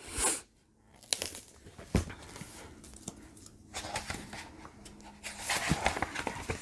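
Pages of a book being turned and handled: a series of soft paper rustles, with a light tap about two seconds in.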